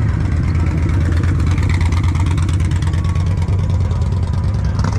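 Motorcycle V-twin engines running with a loud, steady low rumble.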